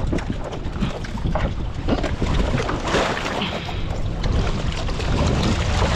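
Wind rumbling on the microphone aboard a small open fishing boat, with irregular rustles and knocks as a wet net full of jellyfish is hauled and handled. There is a brief rise in hissy splash-like noise about halfway through.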